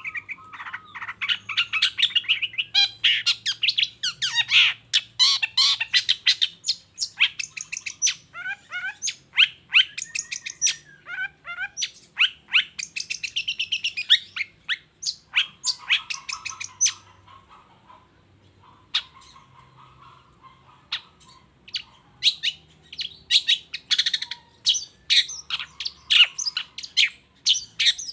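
Long-tailed shrike singing a fast, busy song of short chirps and scratchy chatter, many notes a second, easing into a quieter, sparser stretch about two-thirds of the way through before picking up again.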